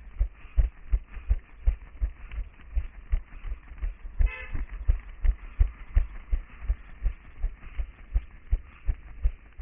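Running footsteps of a head-mounted GoPro wearer, heard as steady thuds about three a second. About four seconds in, a short toot like a vehicle horn sounds as the runner passes a coach.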